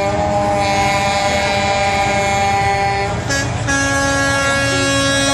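Semi-truck air horns blowing long and steady, several sounding together, with the blend of pitches changing about three seconds in.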